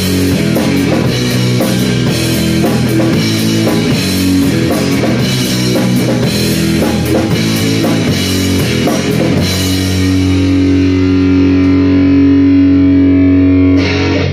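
Electric guitar and drum kit playing a loud rock song. About two-thirds of the way through, the drums stop and a final guitar chord is left ringing to the end.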